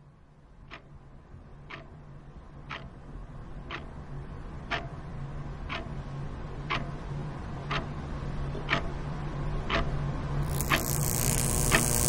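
Clock ticking once a second over a low hum that grows steadily louder. A rushing hiss swells in near the end.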